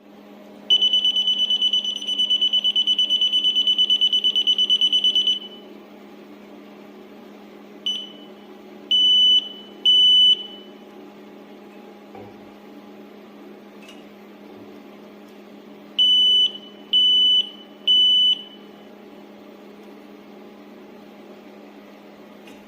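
Electronic refrigerant leak detector beeping in a high tone: a rapid, continuous run of beeps for about five seconds, then two sets of three separate beeps, over a steady low hum.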